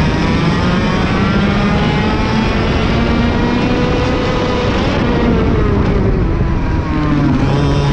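IAME KA100 100cc two-stroke kart engine at racing speed, heard close up from the kart itself. Its pitch climbs for about four seconds as it revs out, then falls over the next three seconds as the kart slows, and stays low near the end.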